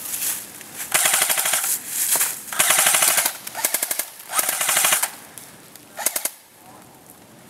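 Airsoft rifles firing four short full-auto bursts of rapid clicks, each under a second, the last and shortest about six seconds in.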